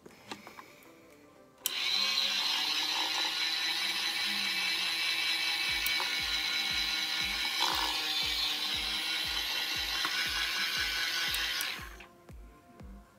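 Toy washing machine's small motor running, spinning its drum to mix water and wash inside. A steady mechanical whir starts suddenly about two seconds in and cuts off about ten seconds later.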